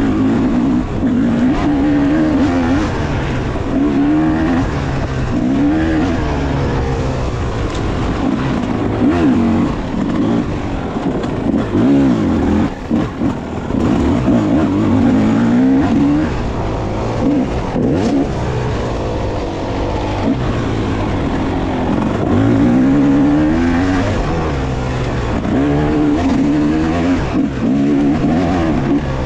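Yamaha 250cc two-stroke dirt bike engine ridden hard off-road, revving up and dropping back over and over as the throttle is worked and gears changed, with a brief let-off about halfway through.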